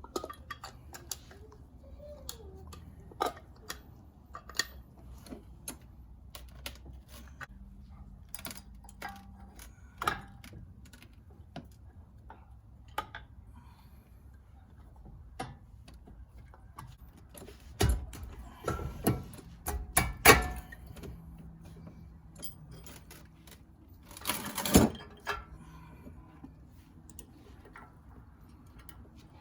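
Metal parts and hand tools clicking and clinking while brake calipers and pads are fitted, with a short cluster of louder knocks past the middle and one brief louder clatter later on.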